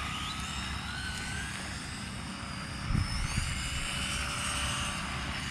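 Electric motors and drivetrains of two small RC buggies whining, the pitch rising and falling as they speed up and slow through the turns. A brief thump about three seconds in.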